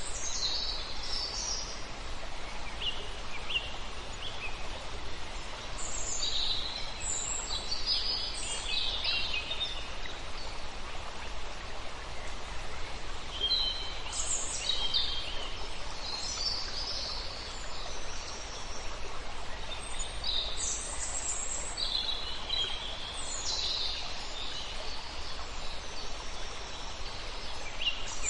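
Birds calling in clusters of short high chirps every few seconds, over a steady rushing hiss.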